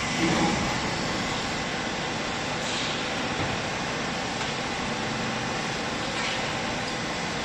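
Hydraulic baling press for used clothes running, a steady mechanical hum and hiss from its motor and pump, with a brief louder swell just after the start.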